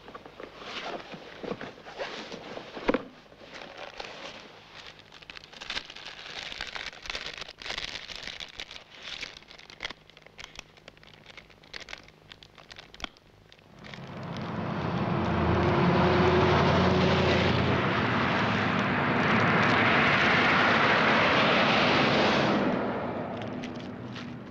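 Highway traffic passing close by: a semi-truck and cars go past with a loud rush of engine and tyre noise. It swells about 14 seconds in, holds for some eight seconds, then fades. Before that there is only a low, crackly background.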